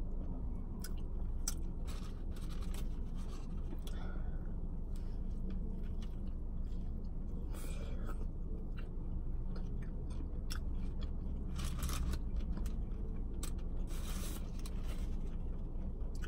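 Close-up chewing and biting of fast food, with crunchy bites now and then, over a steady low hum.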